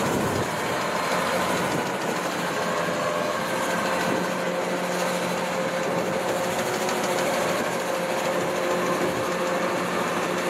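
Kubota DC-93 tracked rice combine harvester running steadily as it crawls through a waterlogged paddy, its engine and threshing works giving an even machine hum with a few held tones.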